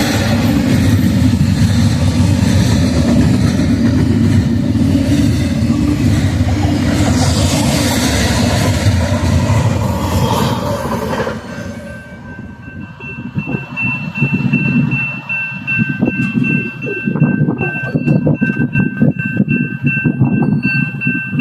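Freight train passing close by: a loud, steady rumble with wheel clatter that dies away about halfway through. After it, a steady high ringing tone carries on over a gusty low rumble.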